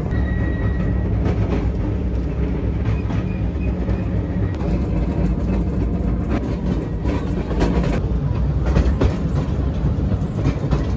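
Open-sided tourist train carriage rolling along its track: a steady low rumble and rattle, with scattered clicks from the wheels over the rails.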